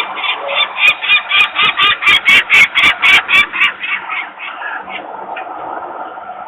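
Adult peregrine falcon giving a rapid, harsh kek-kek-kek alarm call, about five or six calls a second. The calls slow and fade out about five seconds in.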